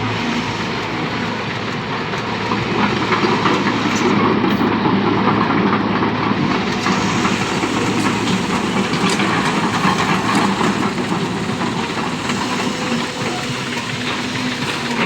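Heavy diesel earthmoving machinery running steadily with a dense, rattling noise, getting louder about three seconds in.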